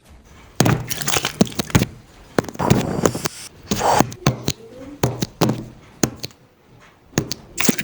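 Homemade cracking and breaking sound effects for a film scene: a run of sharp, irregular clicks and knocks with short noisy bursts between them.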